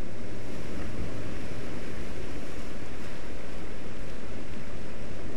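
Rough sea surf surging and breaking against a rocky shore, a steady rushing noise of churning water, with wind on the microphone.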